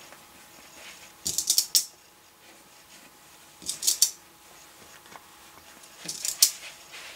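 Fabric scissors snipping in three short bursts of crisp clicks, about two and a half seconds apart: the corners of a sewn cushion cover being clipped diagonally before it is turned.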